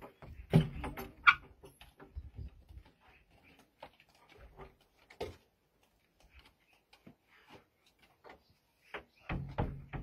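Knocks and clicks of bowls being handled and set down on a mud counter. A few sharp ones come in the first second and a half, then only sparse faint ones.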